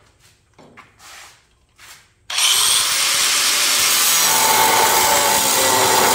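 A few faint handling knocks, then about two seconds in an angle grinder starts up and cuts through a steel bolt, a loud steady grinding of metal with a steady tone coming into it partway through.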